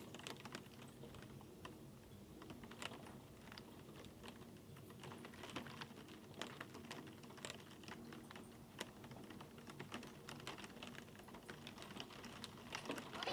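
Typing on a computer keyboard: a steady run of quick, irregular soft key clicks over a faint steady hum.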